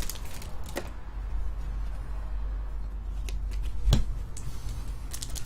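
Trading cards being handled, giving a few light clicks and taps over a low steady hum.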